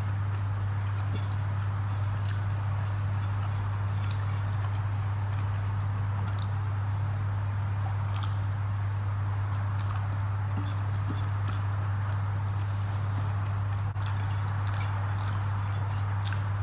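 Close-up eating sounds: scattered soft clicks of chewing and of fingers mixing rice and curry on a plate, over a loud steady low hum.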